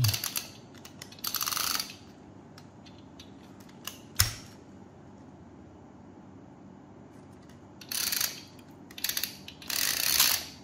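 Plastic table flip clock's time-setting knob turned by hand, its flaps clicking over in quick rattling runs with pauses between. There is a single sharp click about four seconds in.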